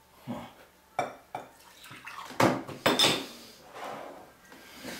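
Glassware clinking and knocking on a tabletop: several separate short clinks, the loudest about two and a half to three seconds in.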